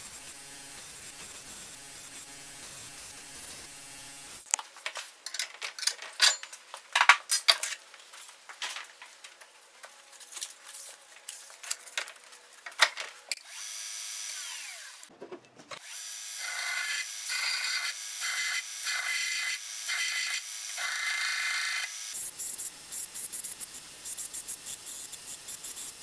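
A belt grinder runs while steel is pressed against its belt to grind a cleaver blank. It comes in a series of short stretches that change abruptly, with sharp scraping strikes in the middle.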